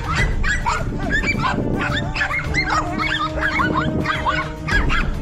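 Several dogs barking and yapping at a cornered lizard, short sharp barks coming several a second and overlapping throughout.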